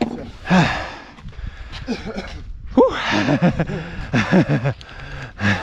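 A man's voice in short, rising-and-falling bursts without clear words, like talk or laughter, over rustling and scuffing.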